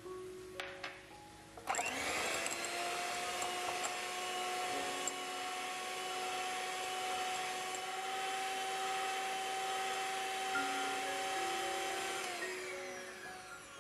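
Electric hand mixer with twin wire beaters switched on about two seconds in, whirring up to speed and then running steadily at medium-high speed as it whips egg whites and sugar into meringue; its pitch falls as it winds down near the end.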